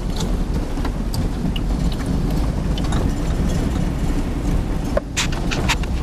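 Vehicle driving along a dirt track, heard from inside the cabin: a steady low rumble of engine and tyres, with scattered clicks and a burst of knocks and rattles about five seconds in.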